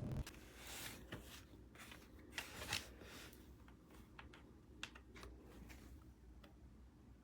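Faint handling noises: scattered light clicks and rustles of small objects being handled, over a low background hum.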